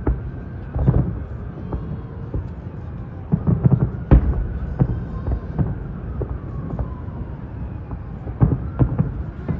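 Fireworks bursting overhead: irregular booms and sharp cracks over a low rumble, with a quick cluster of bangs about three to four seconds in and more near the end.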